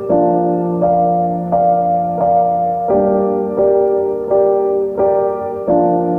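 Background music: gentle piano or keyboard chords changing about every three-quarters of a second.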